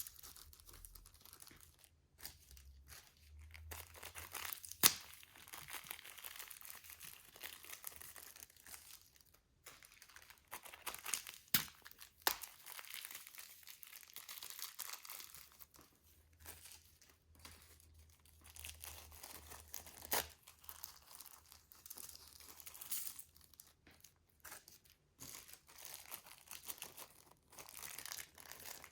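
Slime being worked in plastic piping bags, crinkling and crackling in irregular patches, with a few sharp clicks.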